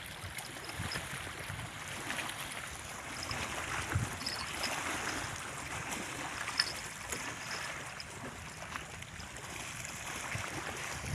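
Waterside ambience: the steady wash of moving water and wind, with scattered small clicks and handling knocks and a few faint, short high chirps.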